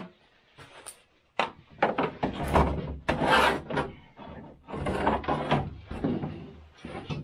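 Irregular clunks, knocks and scraping as the hood of a 1969 Ski-Doo Olympic snowmobile is lifted off the body and carried away, with longer rubbing scrapes in the middle.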